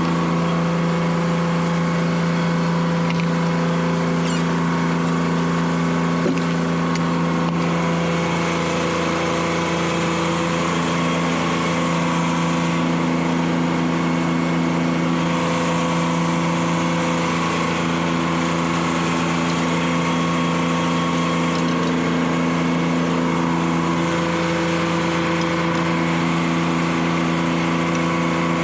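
Detroit Diesel 3-71 three-cylinder two-stroke diesel running steadily at constant speed, powering the sawmill.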